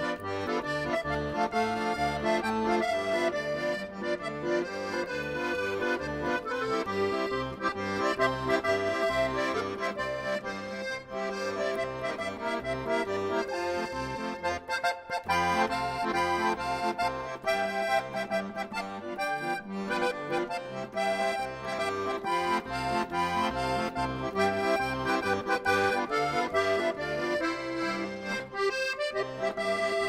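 Accordion playing a tune over a steady, pulsing bass accompaniment.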